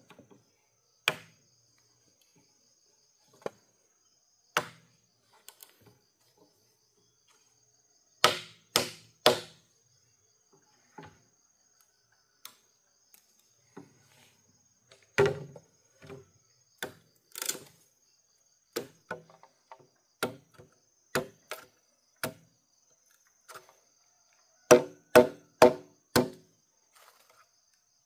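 Sharp, irregular blows of a hand tool striking bamboo, some coming in quick runs of three or four. The run near the end carries a ringing note.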